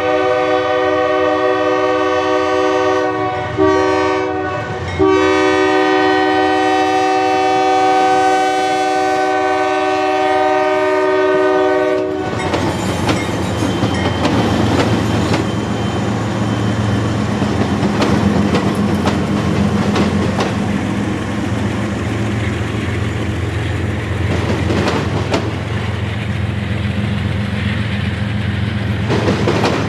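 Norfolk Southern intermodal freight train's multi-chime air horn sounding a long blast, broken twice by short dips, that ends about twelve seconds in as the lead locomotives reach the crossing. After that the diesel locomotives rumble past and the stacked container cars roll by with steady wheel clatter on the rails.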